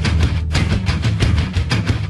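Loud, aggressive music with a fast pulsing beat and heavy bass, breaking off for an instant about half a second in.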